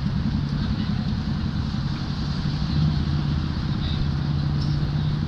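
Steady low rumble of city street traffic, with an engine hum held on one low pitch.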